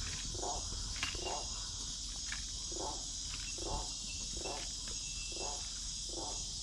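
Amazon rainforest night chorus: a steady high-pitched drone of insects, with a lower pulsing call repeating about once a second.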